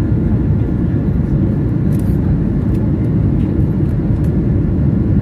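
Steady, loud cabin noise of an Airbus A220 in flight: the low, even drone of its Pratt & Whitney PW1500G geared turbofans and the rush of air past the fuselage, heard from a window seat over the wing.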